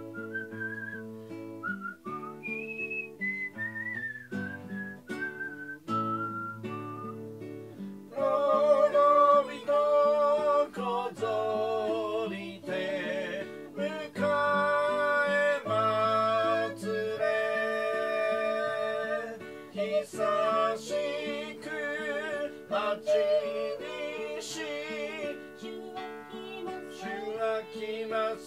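A hymn performed over plucked acoustic guitar chords: at first a smooth whistled melody, then from about eight seconds in, louder singing voices with vibrato over the guitar.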